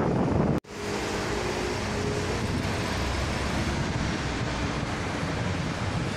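Steady rumbling noise of wind on the microphone, with an abrupt cut to silence just over half a second in and a slightly quieter steady rumble after it, with faint steady tones for a second or two after the cut.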